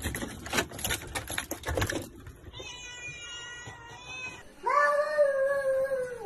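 A bunch of keys jangling and clicking in a door lock for about two seconds. Then a cat meows: first a thin, steady call, then a loud, long meow that sinks slightly at the end.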